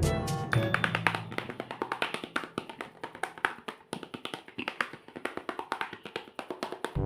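Background music with a long run of rapid tapping clicks; the music's bass drops away about a second in, leaving mostly the clicks, and comes back near the end.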